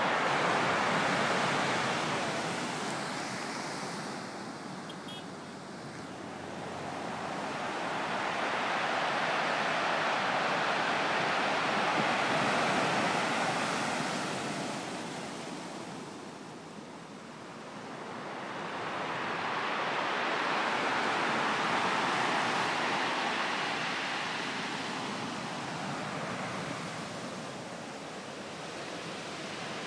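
Storm surf breaking and washing ashore in a continuous rush of noise that swells and fades about every ten seconds, with wind.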